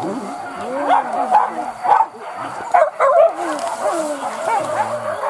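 A pack of hunting dogs yelping and baying on a wild boar chase, many short high yelps overlapping without a break.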